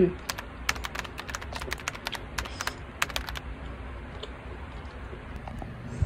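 Computer keyboard typing sound effect: a rapid, irregular run of key clicks that thins out to a few scattered clicks after about three and a half seconds.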